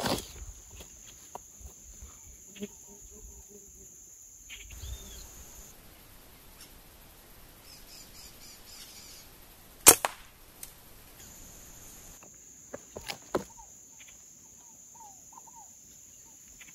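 A single air-rifle shot, one sharp crack about ten seconds in, followed by a fainter knock. Around it, a quiet background with a few light clicks and short bird chirps.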